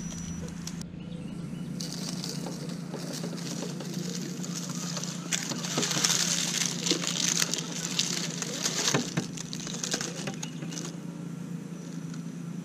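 Radio-controlled scale crawler truck with a Toyota Tacoma body driving over loose dirt and rocks. Its electric drivetrain gives a steady low hum, while the tyres crunch and scrape on the ground, loudest in the middle stretch.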